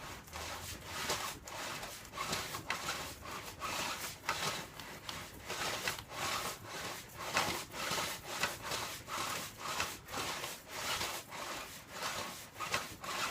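Stiff brush scrubbing grime off a Suzuki RF600 motorcycle's drive chain in steady, repeated back-and-forth scraping strokes.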